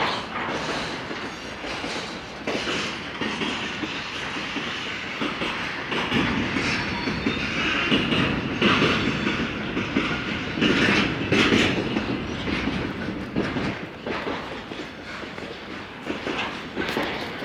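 A train passing close by, its wheels clattering over the rails in a continuous heavy rumble that shakes the ground.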